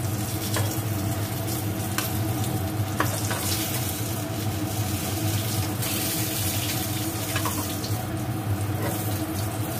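Eggplant pieces frying in hot mustard oil in a kadai, a steady sizzle. A metal spatula clicks and scrapes against the pan a few times as the fried pieces are lifted out, over a steady low hum.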